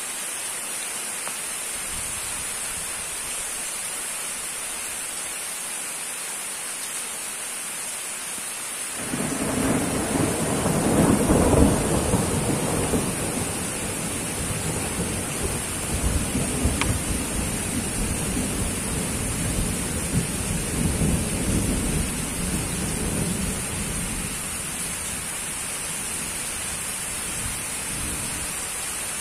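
Thunder: a long rolling rumble starts about nine seconds in, peaks a few seconds later and slowly dies away, over a steady hiss.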